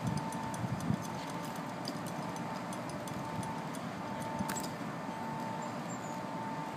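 Outdoor background noise with faint light metallic clinks, typical of lineman climbing belts and gaffs shifting on wooden poles, and one slightly sharper tick about four and a half seconds in. A faint steady tone sits under it.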